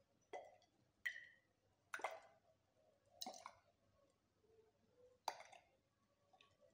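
Faint glass-on-glass clinks as a slender glass tube knocks against the wall of a test tube. There are five clinks spread over several seconds, and one has a short ringing tone.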